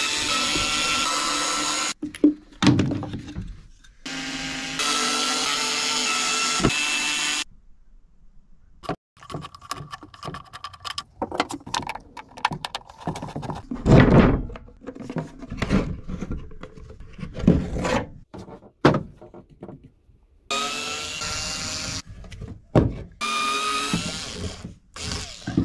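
Small cordless screwdriver driving screws into wood, its motor whining steadily in runs of two or three seconds, twice early on and twice near the end. In between come scraping and knocking of hand tools working the wood, with one loud knock about midway.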